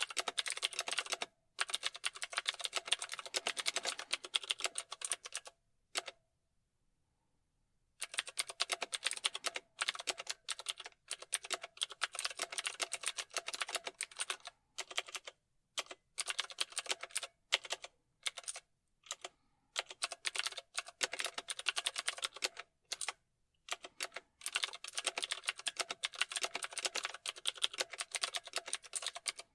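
Typing on a computer keyboard: fast runs of key clicks broken by short pauses, with a silent gap of about two seconds a quarter of the way in.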